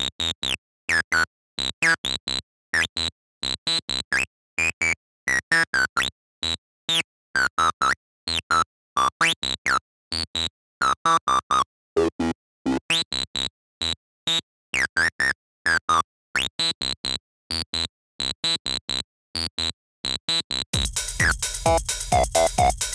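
Electronic acid-style synthesizer line in short, evenly spaced staccato notes, its tone sweeping up and down as it is modulated by hand from a homemade photoresistor Arduino MIDI controller. Near the end a full techno beat with drums comes in.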